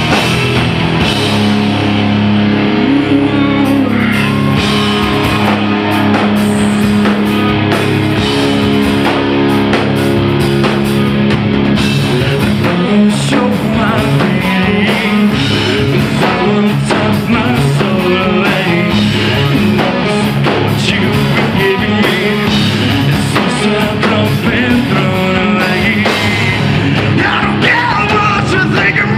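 A rock band playing live: electric guitar, bass guitar and drum kit, with a male vocalist singing into a microphone over them.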